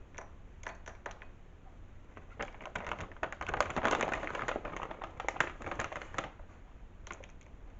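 A bag of white vanilla baking chips rustling and the chips pouring into a bowl: a dense run of small clicks that builds in the middle and thins out near the end.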